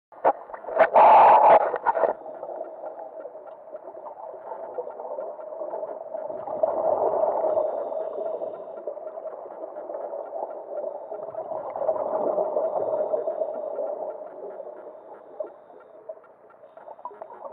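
Scuba diver's breathing heard underwater through the camera: a loud rush of exhaled bubbles about a second in, then a steady hum that swells twice, about five seconds apart, with each breath.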